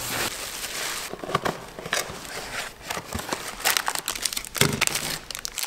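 A plastic carrier bag crinkling and a cardboard box rustling as a wrapped popsicle is pulled out of the box, a run of irregular crackles.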